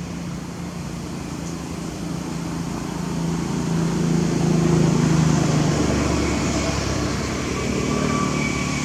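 A motor vehicle's engine humming and growing louder to a peak about halfway through, then easing off.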